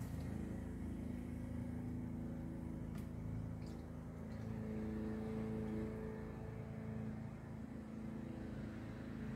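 A steady low engine hum, a little louder about halfway through.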